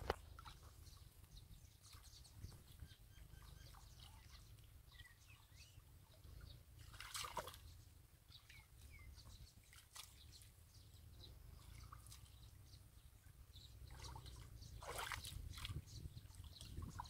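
Faint sloshing and squelching of hands and bare feet working through shallow muddy water and mud, with small scattered drips and a louder slosh about seven seconds in and again near the end.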